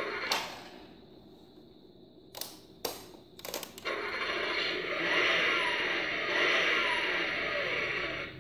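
Several sharp plastic clicks as the key and buttons of a toy remote-control steering wheel are worked. About four seconds in, a sustained electronic engine-start sound effect comes from the toy's small speaker and stops shortly before the end.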